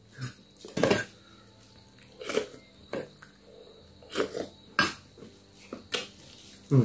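Close-up eating mouth sounds: about eight short smacks, sucks and throat noises spaced apart as someone chews and swallows rice and meat eaten by hand.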